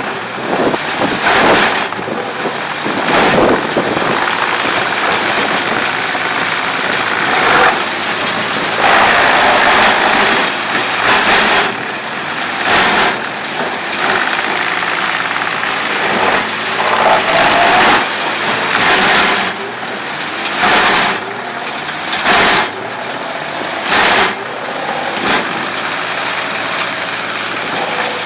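A large wood chipper running under load: its engine runs steadily while wood is fed through, with repeated loud surges of crunching and shredding as pieces are chipped.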